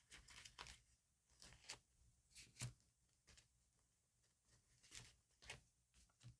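Faint, scattered small clicks and crisp rustles of stickers and paper being handled for diary decorating.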